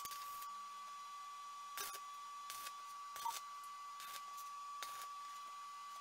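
A steady high-pitched electrical whine over a faint low hum, with about half a dozen sharp clicks spaced roughly a second apart.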